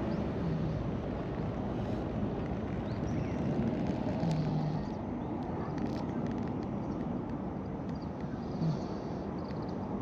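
Orange-and-white cat snoring in its sleep: a short, low, buzzy snore about every four seconds, over a steady outdoor rumble.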